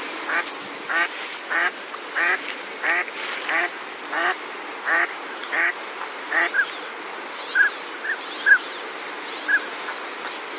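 Pintail duck quacking in a steady series of calls about every half second, then shorter, higher-pitched calls spaced further apart, over a steady background hiss.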